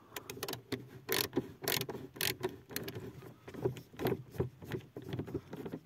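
A screwdriver turning out a Torx 20 screw in a car's plastic roof-light housing: a run of irregular clicks.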